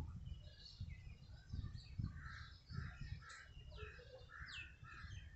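Birds calling outdoors: a busy run of short, harsh calls repeated in quick succession, with a couple of thin falling whistles in the middle. An irregular low rumble runs underneath.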